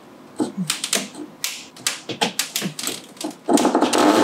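Ceiling-mounted light track being worked loose from the ceiling by hand: a run of irregular sharp clicks and knocks, then a dense rattle starting about three and a half seconds in.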